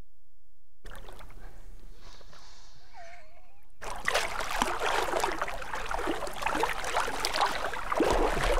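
Faint for the first few seconds, then splashing and sloshing water in knee-deep shallows from about four seconds in: a hooked permit thrashing at the surface beside a wading angler as he reaches down to land it.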